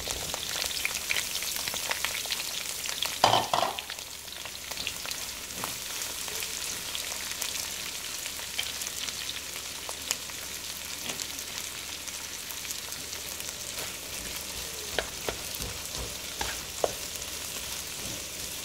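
Sliced onions sizzling in hot sesame oil in a nonstick wok, stirred with a wooden spoon that scrapes and clicks against the pan. The sizzle is a steady hiss, a little louder in the first few seconds, and a sharp knock about three seconds in is the loudest sound.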